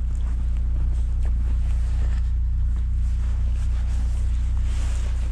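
Lada Niva Travel's 1.7-litre four-cylinder petrol engine idling steadily, warming up after a cold start in frost.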